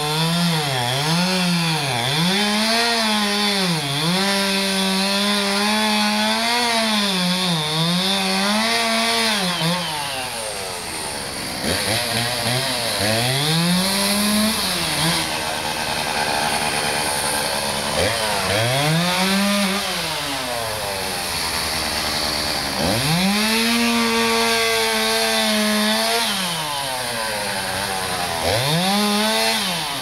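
Two-stroke chainsaw cutting into a dead pine trunk, its engine pitch dipping again and again under load for the first ten seconds. It then drops toward idle and is revved up in four short bursts.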